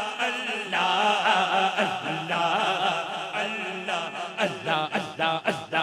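Male voices chanting zikr, repeating "Allah" over an amplified PA, with a low held note under a wavering lead voice. Near the end the chant turns into quick rhythmic repeats of about four syllables a second.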